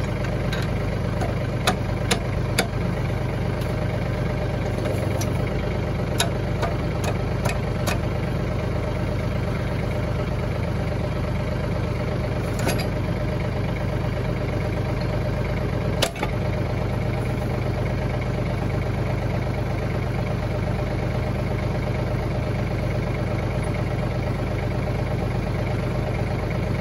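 Tractor engine idling steadily, with sharp metal clinks and knocks from the three-point hitch and top link being fitted to a sickle bar mower. The clinks come in a cluster over the first eight seconds, then once near 13 seconds and once near 16 seconds in.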